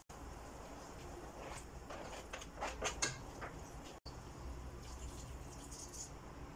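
Sliced button mushrooms tipped into a pot of cooking chicken, giving a quick run of soft knocks and taps about two to three seconds in, over a low steady hum.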